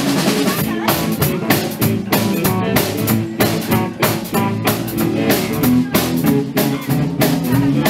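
Live blues band playing an instrumental passage: electric guitars over a drum kit keeping a steady beat.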